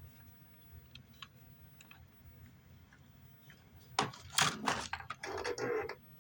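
A few faint ticks, then about four seconds in a quick run of loud plastic clicks and clunks from handling a GE portable cassette player as the test tape is loaded and the buttons are pressed. Tape playback starts faintly just before the end.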